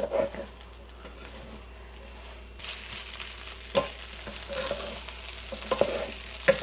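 Fried rice sizzling in a hot non-stick wok as two wooden spatulas stir and toss it, the sizzle growing louder about two and a half seconds in. A few sharp knocks of the wooden spatulas against the wok ring out along the way.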